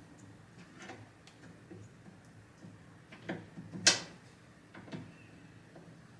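Small clicks and knocks of a cabinet knob and its mounting screw being handled and fitted to a drilled door, with one sharp click about four seconds in.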